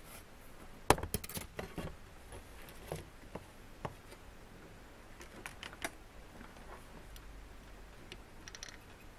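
Printed circuit board being handled, turned over and laid down on a leather work mat: a sharp knock about a second in, then scattered small clicks and taps as it is settled and the soldering iron and solder wire are brought to it.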